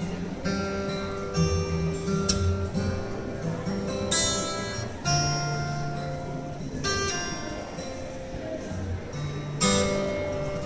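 Acoustic guitar played live through a PA system, holding chords, with a few strong strums spread through the passage.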